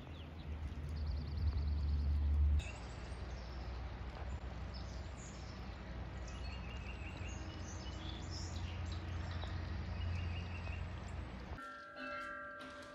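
Wind buffeting the microphone outdoors as a strong low rumble, heaviest in the first couple of seconds, with short repeated bird calls over it through the middle. About a second before the end the wind stops and a few steady ringing tones sound.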